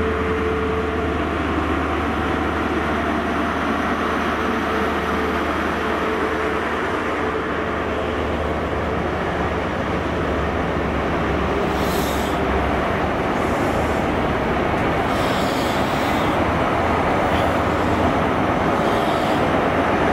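Class 43 HST (InterCity 125) set moving slowly past a platform. The power car's MTU diesel engine drones steadily at first, then the coaches' wheels run by with a few short squeals. Near the end the noise grows louder as the rear power car approaches.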